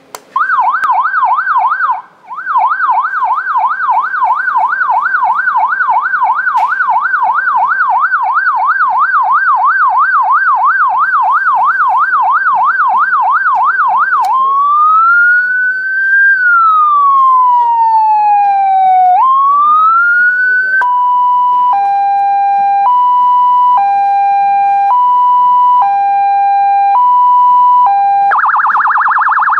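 Landun electronic siren cycling through its tones. First comes a fast yelp, rapid up-and-down sweeps with a brief break near the start. About halfway it changes to a slow rising and falling wail, then to a two-tone hi-lo alternating about once a second, and near the end to a very fast warble.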